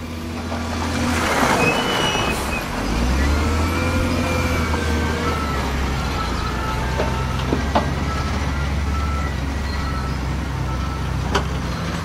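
SDLG wheel loader's diesel engine running under load as the loader drives its bucket into a pile of rock and dirt; the engine gets louder about three seconds in. A few sharp knocks come through late on.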